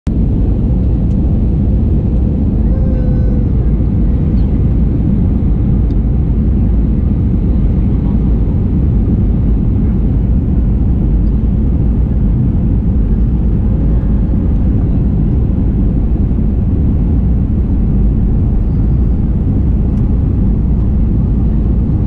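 Steady rumble of a jet airliner's cabin in flight: engine and airflow noise, heavy in the low end, unchanging throughout.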